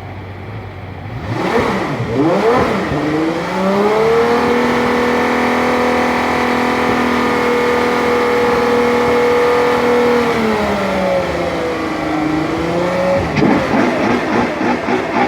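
Ferrari F12tdf's 6.3-litre naturally aspirated V12 revved while stationary: a couple of quick blips about a second in, then the revs climb and are held steady high for about six seconds before falling away, ending in a run of short, sharp blips.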